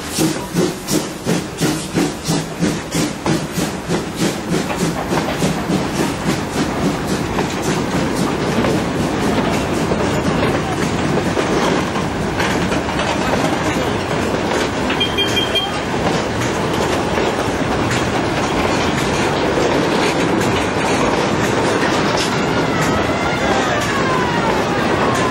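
Preserved German steam locomotive chuffing in regular beats, about two a second, fading over the first few seconds as it draws away, then the steady rumble and clatter of loaded flat wagons rolling past. A falling wheel squeal sounds near the end.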